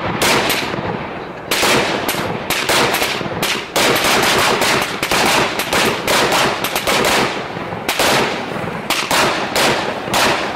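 A barrage of fireworks going off inside a gutted microwave oven: a rapid, irregular string of sharp bangs and crackling, several a second, with no let-up.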